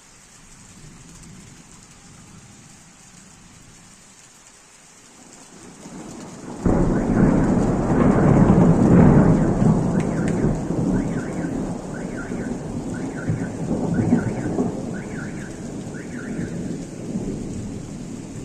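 Heavy rain falling steadily, then a loud thunderclap breaks in suddenly about six and a half seconds in and rolls on, rumbling and slowly fading. Through the tail of the rumble comes a faint run of short high chirps, about one a second.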